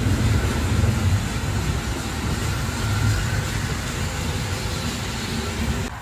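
Railway goods wagons rolling past at close range, their wheels rumbling steadily on the rails. The sound drops off abruptly near the end.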